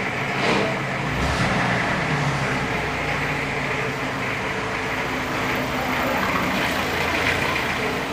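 Steady background noise: a low, even hum with a hiss, the kind made by running machinery or distant traffic.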